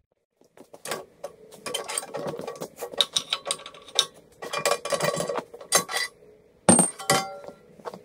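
Metal clicks, knocks and clinks as a steel pin is worked loose and pulled from the pivot of a bolt-on excavator thumb, with short ringing metal notes. The loudest is a sharp metallic clank with a brief ring about two-thirds of the way through.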